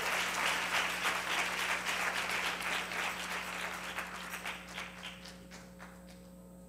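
Congregation applauding, many hands clapping together, thinning out and dying away about five to six seconds in.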